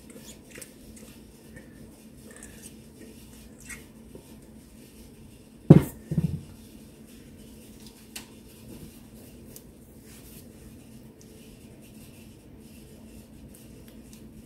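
Spatula scraping enchilada sauce out of a stainless steel mixing bowl and spreading it over tortillas in a ceramic baking dish, with faint scrapes and small clicks throughout. A loud double knock about six seconds in is the loudest sound.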